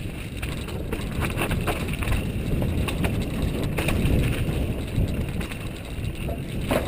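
Mountain bike descending a rocky trail: a steady low rumble of tyres over the ground, with scattered clicks and knocks of the bike rattling over rocks.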